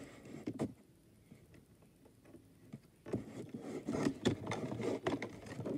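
Small clicks and scraping of plastic as hands handle a toy dragon and reach inside it for a game piece. A single click comes about half a second in, then a run of light clicks and rustles from about three seconds on.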